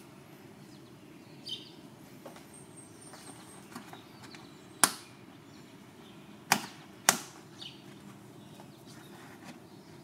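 Sharp plastic clicks as a stubborn trunk-trim push clip is worked at by hand and with a plastic pry tool: three loud snaps about five, six and a half and seven seconds in, with fainter ticks between.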